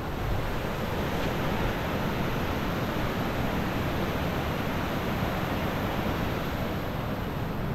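Fast-flowing floodwater churning in waves, a steady even rush.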